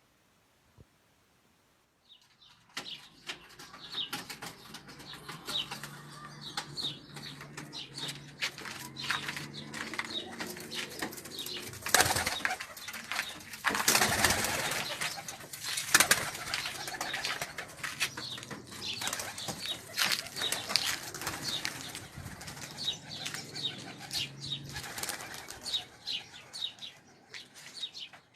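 Domestic pigeons cooing, with wings flapping and clattering; the flapping is loudest in bursts about 12 seconds in and again from about 14 to 16 seconds.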